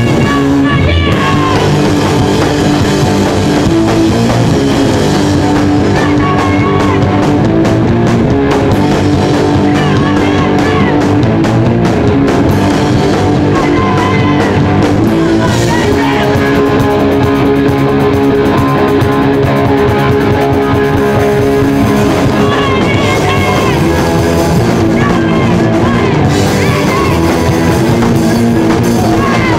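Live rock band playing loud: electric guitars, bass guitar and a drum kit, with a singer's vocals into a microphone over them.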